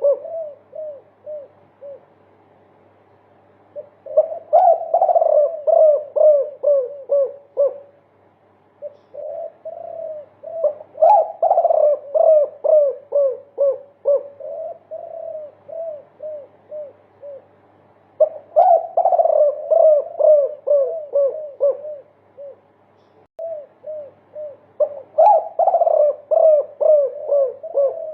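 Spotted dove (derkuku) of the multi-kuk type singing long runs of rapid coos, about three notes a second. The song comes in four bouts, each a few seconds long, separated by short pauses.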